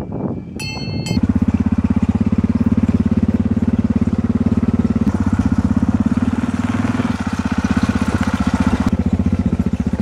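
A brief clink of cowbells, then about a second in a motorcycle engine running steadily at an even cruising pace, heard close from on board the bike as it rides a dirt track.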